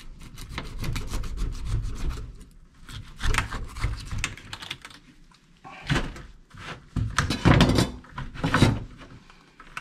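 Kitchen knife scraping the scales off a Korean rockfish in a series of rasping strokes, with knocks as the fish and blade bump the plastic basket.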